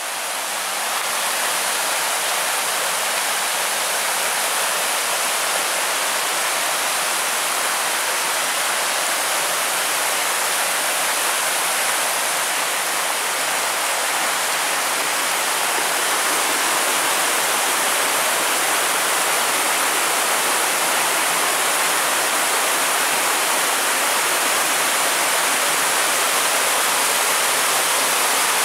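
Mountain creek rushing and splashing down rock cascades in a steady roar of water, growing a little louder in the first couple of seconds and again toward the end.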